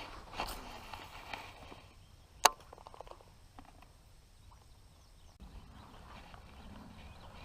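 A single sharp click about two and a half seconds in, followed by a brief quick rattle of fainter ticks, over quiet outdoor background.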